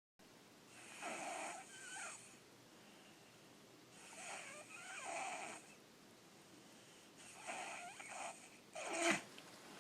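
A sleeping child snoring: three long, rasping breaths about three seconds apart, each in two pulses, followed by a short, louder breath near the end.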